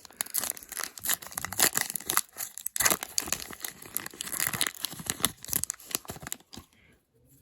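Foil wrapper of a hockey card pack being torn open and crinkled by hand: dense crackling and tearing that stops about six and a half seconds in.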